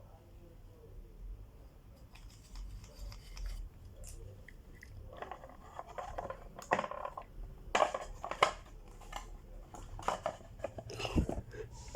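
Hand tools and pipe parts being worked during a pipe repair: irregular clicks, scrapes and knocks, sparse at first, then busier and louder in the second half.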